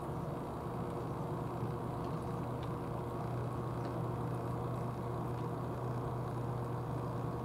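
Steady low mechanical hum with a faint constant whine above it, like a motor running.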